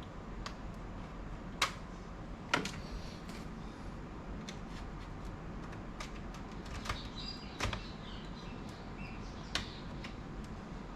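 Scattered sharp plastic clicks and light scraping from prying at a laptop's internal parts, with about four louder snaps among fainter ticks. A part is still clinging and being worked loose.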